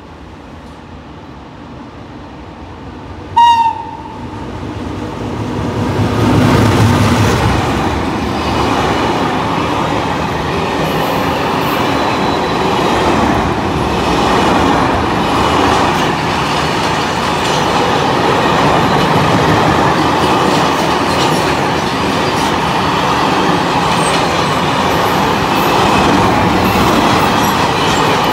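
A train horn gives one short blast about three seconds in. Then an electric-hauled freight train passes close by: the locomotive comes through with a low rumble, followed by a long line of covered sliding-wall wagons rolling past with steady wheel-on-rail noise.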